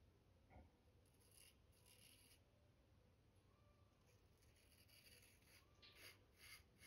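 Faint short scrapes of a John Barber straight razor cutting stubble through shaving lather: a few strokes in the first two seconds, then a quicker run of strokes near the end.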